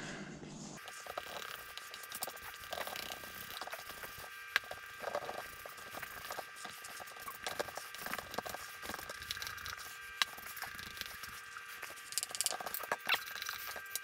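Thick, peanut-butter-consistency patty of pollen substitute and sugar syrup being mixed and worked by hand: irregular soft clicks and taps, a sharper one about four and a half seconds in and another about ten seconds in. A faint steady hum runs underneath.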